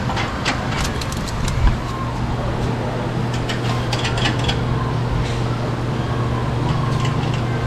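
Sharp metallic clicks and clinks of suspension parts and tools being worked, with a thump just under two seconds in. After the thump a steady low machine hum starts and holds.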